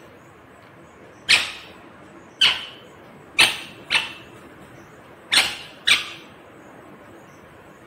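A rose-ringed parakeet biting into a corn cob: six sharp crunching snaps, each dying away quickly, the last four coming in two close pairs.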